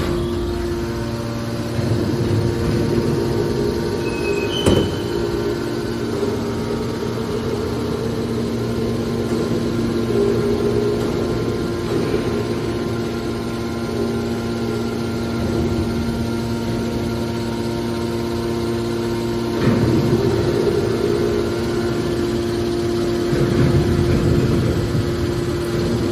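Hydraulic metal baler running: its motor and pump hum steadily. There is a sharp knock about five seconds in, and louder, rougher stretches around twenty seconds and near the end.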